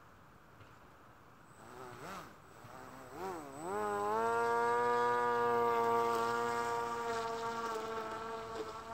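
Handmade RC fan boat's motor and air propeller: two short throttle blips, rising and falling in pitch, about two and three seconds in, then a steady run at an even pitch from about four seconds on that slowly fades as the boat moves off.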